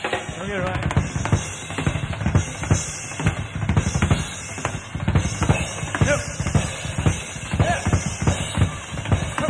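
Live drum kit solo: fast, dense strikes and rolls on bass drum, snare and toms, several hits a second.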